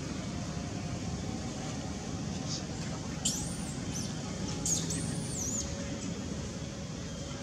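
A few short, high-pitched animal squeaks that swoop up and down, about three seconds in and again near five seconds, over a steady low background hum.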